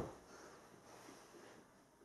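Near silence: faint room tone, with the fading tail of a brief knock right at the start.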